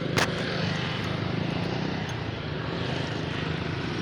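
Suzuki Smash motorcycle's single-cylinder four-stroke engine idling steadily after carburettor tuning, with one sharp click just after the start.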